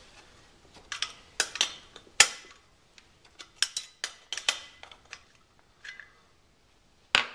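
Scattered metallic clicks and light knocks, irregular rather than rhythmic, from small metal parts and hand tools being handled while the drain valve is taken out of the air compressor's tank. The sharpest knock comes about two seconds in.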